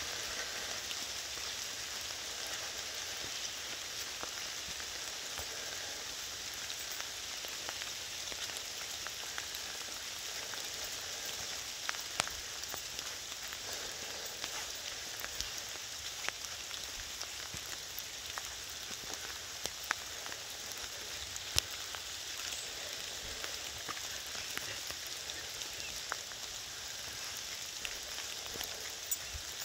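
Steady rain falling on leaves: a constant hiss with scattered louder drops ticking close by.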